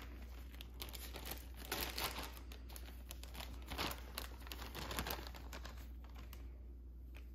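A zip-top plastic bag crinkling as it is picked up and handled, in irregular crackles that die down about six seconds in.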